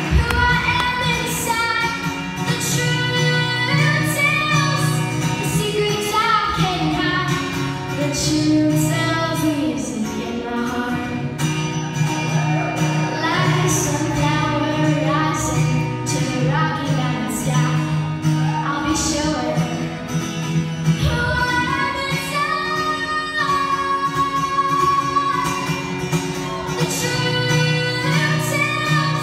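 A young female singer singing a slow melody into a microphone, accompanied by her own strummed acoustic guitar.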